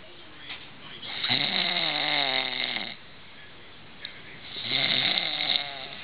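A man snoring loudly in his sleep: two long snores, each about two seconds, the first starting about a second in and the second about three and a half seconds later, their pitch falling through each snore.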